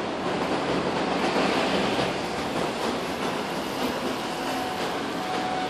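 Steady rumble and rattle of a moving vehicle, with a faint steady whine near the end.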